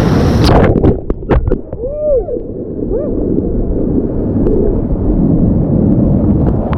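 Rushing whitewater and heavy splashing against a helmet-mounted action camera as the raft runs a rapid. It starts with a few sharp splashes, then goes dull and muffled about a second in as water covers the camera, with some gurgling.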